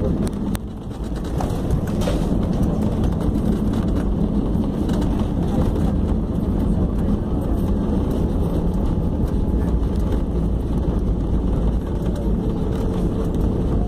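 Inside the cabin of a jet airliner on its landing run along the runway: a steady, loud rumble of engines, air and wheels, heaviest in the low end. It drops briefly about a second in, then comes back to the same level.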